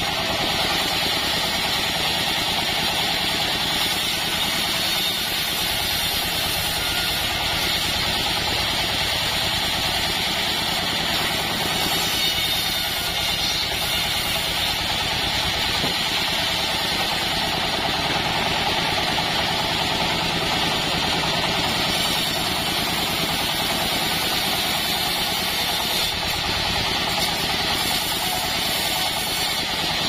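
Band sawmill running steadily, its motor and moving blade making a constant drone as slabs of hibiscus (waru) wood are sawn.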